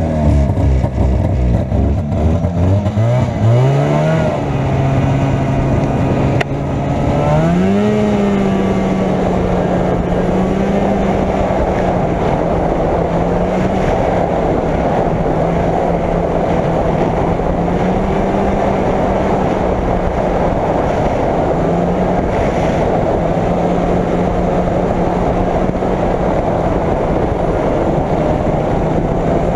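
Arctic Cat Jag 440 snowmobile's two-stroke engine pulling away. Its pitch climbs sharply twice in the first eight seconds, then it runs at a fairly steady speed with small rises and dips.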